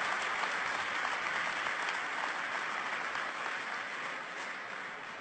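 Audience applauding, a steady patter of many hands clapping that slowly dies away over the last couple of seconds.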